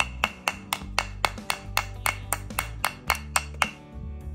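Metal screwdriver shaft tapping quickly on a wooden block and the plastic plug set in it, about four sharp taps a second, stopping shortly before the end. Background music plays underneath.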